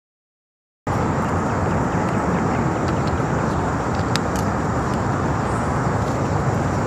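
Steady outdoor rumble and hiss, heaviest in the low end, cutting in suddenly about a second in after silence, with two quick sharp taps a little past the middle.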